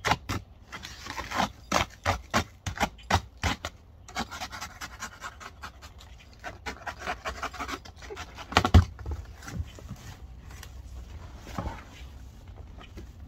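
A cardboard mower box being cut and worked open: repeated short scraping and sawing strokes through cardboard and tape, about two or three a second, then denser rustling of cardboard, with one loud thump about nine seconds in.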